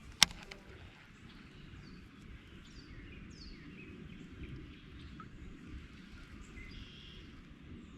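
Outdoor ambience: a few faint bird chirps, short falling notes, over a steady low rush of background noise, with one sharp click about a quarter second in.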